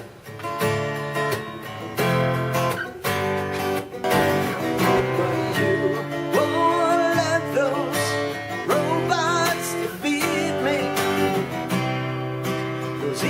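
Guitar being played: strummed chords at first, then from about six seconds in single melody notes with wavering vibrato ringing over the chords.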